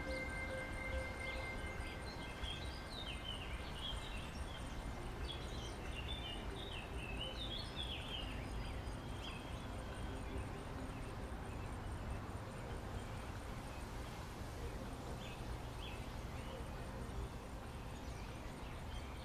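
Outdoor ambience: small birds chirping in quick runs of short calls, busiest in the first half, over a steady low rumble of wind. A faint steady whine fades out about two seconds in.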